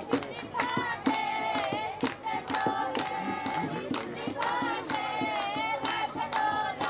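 A group of women singing a wedding folk song together in high voices, kept in time by steady hand clapping at about two to three claps a second.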